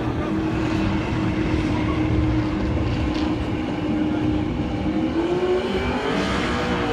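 Drag racing car engine running at the strip: a steady drone, then rising in pitch from about five seconds in before easing off near the end.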